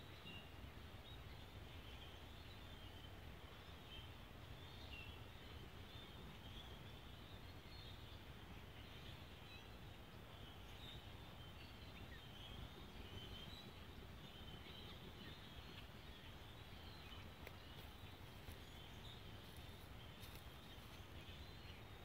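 Faint, continuous chatter of a large flock of distant birds, many high calls overlapping, over a low background rumble.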